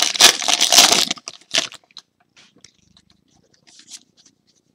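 Foil trading-card pack wrapper crinkling loudly as it is torn open for about the first second, with a shorter crinkle just after, then faint rustling and small clicks as the cards are slid out.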